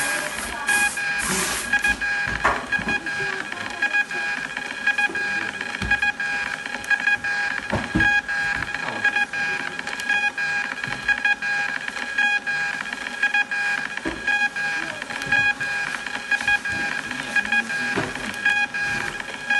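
Xprinter XP-450B thermal label printer printing a continuous run of shipping labels: a steady, high-pitched multi-tone whine from the paper feed, pulsing in a regular rhythm as the labels advance.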